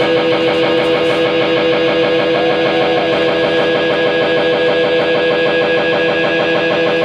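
Metal band playing live at full volume: distorted electric guitar holding steady ringing notes over fast, even drumming, with no break.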